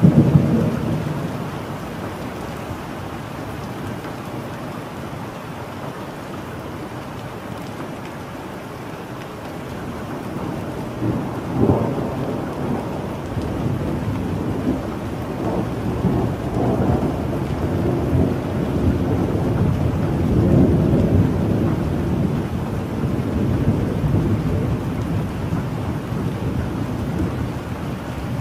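Thunderstorm: steady rain with a loud thunderclap at the very start that dies away over a couple of seconds, another sharp crack about twelve seconds in, and long rolling thunder through the second half.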